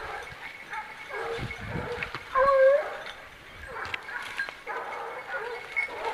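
Hunting dogs baying and yelping during a wild boar drive: scattered short calls, with one loud, drawn-out call about two and a half seconds in.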